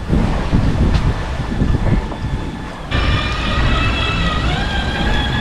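Wind rushing on the microphone. About three seconds in, the electric Code Zero furler's motor starts with a sudden, steady high whine that wobbles briefly in pitch and then holds level as it furls the sail.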